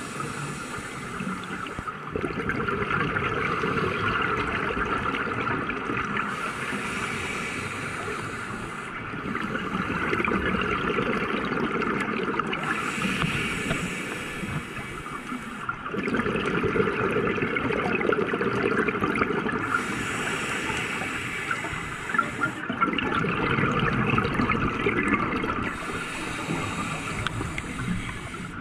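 Scuba diver's regulator breathing, heard underwater. Four slow breaths, about every six to seven seconds: each is a hissing inhale through the regulator followed by a gurgling rush of exhaled bubbles.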